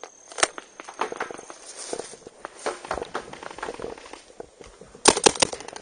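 Footsteps crunching through brush and leaves, with scattered crackles. Near the end comes a quick string of about five sharp paintball marker shots.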